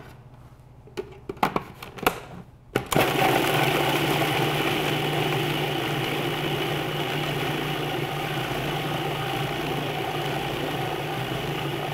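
A few light knocks, then about three seconds in a food processor switches on and runs steadily with a low motor hum, blending cooked beans, roasted onions and olive oil until reasonably smooth.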